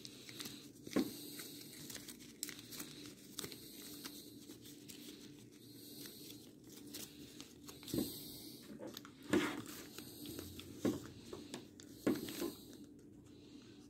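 Plastic gift ribbon crinkling and rustling in the hands as it is folded and pinched into rosette loops, faint, with a few sharper crinkles scattered through.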